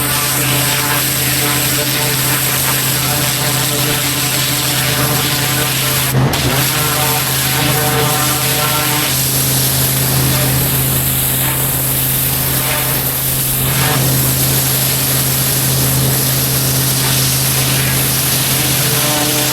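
Pressure washer's gas engine running steadily under load, with the hiss of high-pressure water spray. A single short knock about six seconds in.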